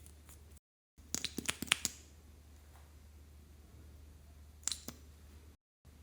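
Slime being worked by hand, giving a quick run of small sharp clicks and pops about a second in and two more near the end, over a low steady hum.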